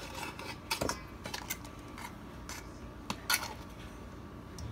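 Scattered light clinks and knocks of kitchen utensils against a stainless steel mixing bowl, the loudest a little after three seconds in.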